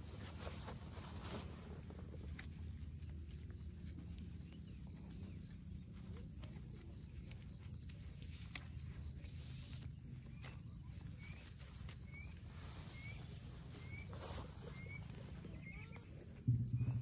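Faint outdoor ambience with a steady low rumble and scattered light taps. In the second half a series of short, rising high chirps repeats about once a second, and near the end a louder low hum starts abruptly.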